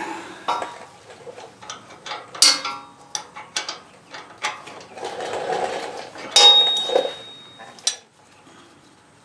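Open-end wrenches clinking and clicking on the oil drain fitting of a mower engine as it is loosened for an oil change, in a series of sharp metallic clicks and knocks, with a brief ringing tone about six seconds in.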